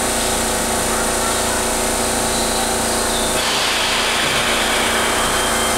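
Keihan 13000 series electric train at a platform: a steady electrical hum while it stands, then it starts to pull away about three and a half seconds in, with a rising motor whine and wheel noise.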